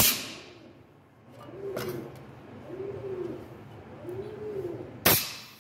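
A pigeon cooing three times, low coos that rise and fall, about a second apart, with two loud sharp clacks at the start and about five seconds in.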